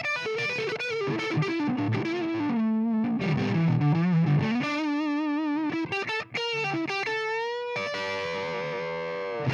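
Electric guitar through a Carstens Warm Machine 50-watt EL34 valve amplifier with the gain turned up for overdriven crunch, playing a single-note lead line. Held notes waver with vibrato, and near the end one note is sustained at length with vibrato.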